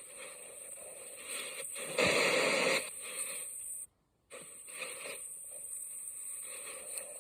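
Sea waves as a sound effect: a steady rushing wash of noise, with a louder surge about two seconds in that stops abruptly and a brief cut-out to near silence about four seconds in.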